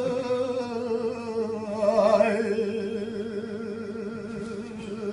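A man singing unaccompanied, holding long drawn-out notes with a wavering vibrato. The voice swells about two seconds in, then slowly fades.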